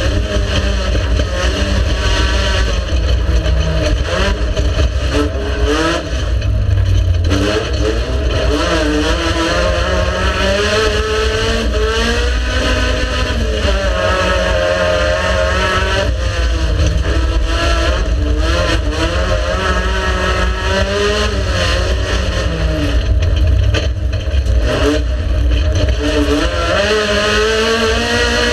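Race car engine at full effort, its pitch climbing and dropping again and again as the driver goes up and down through the gears, with sharper drops about six seconds in and again near the end.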